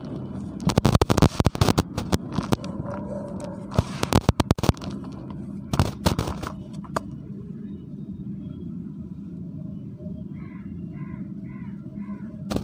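Dry dirt being crumbled by hand in a plastic bucket, picked up through a damaged microphone as loud crackles and pops over a steady low electrical buzz. The pops come thick for the first seven seconds or so, then thin out, leaving mostly the buzz.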